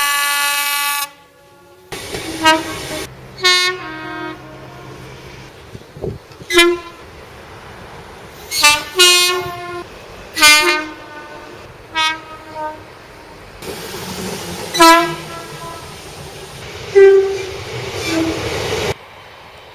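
Train horns: a long blast ending about a second in, then a string of short blasts, mostly two-tone pairs sounding a higher note and then a lower one, over the noise of the trains.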